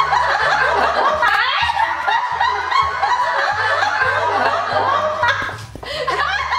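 A group of men and women laughing hard together, many voices overlapping, easing off briefly about five and a half seconds in before picking up again.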